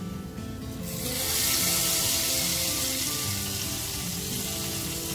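Hot coconut-oil tempering of shallots, curry leaves and chilli powder sizzling as it is poured into the fish curry in a clay pot. The sizzle starts suddenly about a second in and slowly eases off.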